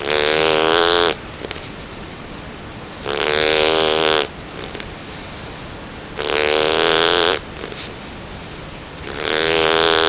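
A nine-week-old Bernese Mountain Dog puppy snoring in its sleep: four snores about three seconds apart, each a little over a second long.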